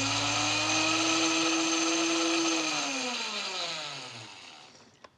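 KitchenAid countertop blender running at speed, pureeing a thick herb marinade, then winding down after being switched off about two and a half seconds in: its whine slides down in pitch and fades away. A small click near the end.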